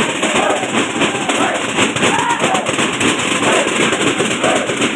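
Many tappeta frame drums beaten fast together in a dense, continuous clatter, with voices calling or singing over it.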